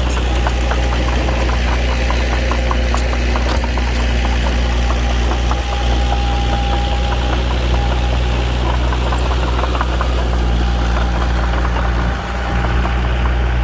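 Diesel engine of a small D21-P bulldozer running steadily while it works, with faint clicking over the engine and a brief dip in engine sound near the end.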